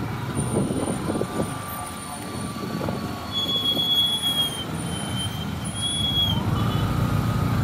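City street traffic: engines of cars and motorcycles running and moving in slow traffic. A high thin squeal, like a brake, comes in about a third of the way through and holds on and off for about three seconds.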